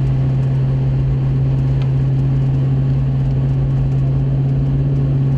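Vehicle running, heard from inside the cabin: a steady low hum over an even rumble that holds unchanged.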